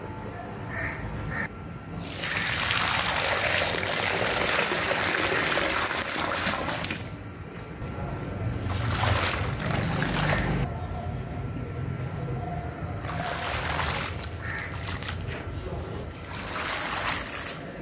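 Water poured into a hollow in a mound of dry gritty soil, splashing and pooling in several pours with short pauses, the first and longest starting about two seconds in.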